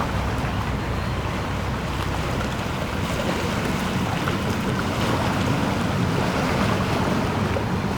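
Steady wind rumbling on the microphone.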